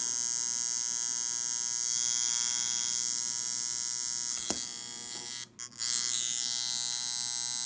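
Homemade electromechanical buzzer horn, a half transformer core with only its primary winding vibrating a metal plate, giving a steady buzz. A click comes about four and a half seconds in, and the buzz cuts out twice briefly about a second later before it resumes.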